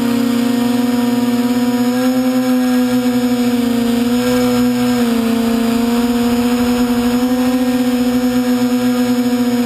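A radio-controlled model airplane's motor and propeller, heard close from the camera mounted on the plane: a steady, loud drone that dips slightly in pitch about halfway through and then settles back.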